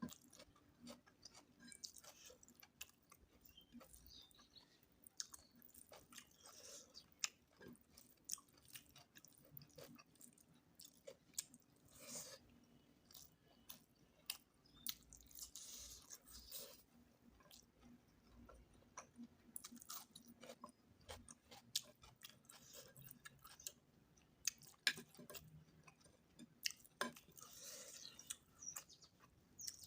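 A person chewing and eating mutton curry, with irregular soft wet clicks and smacks of the mouth.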